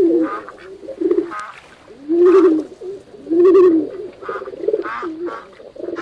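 Pigeons cooing: a run of repeated low coos, with two longer, louder coos in the middle.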